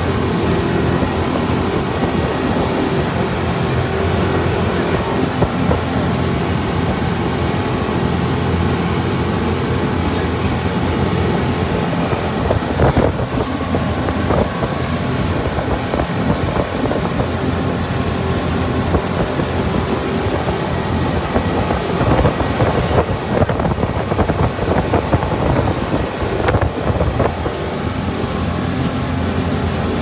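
Motorboat engine running steadily under way, with water rushing past the hull and wind buffeting the microphone.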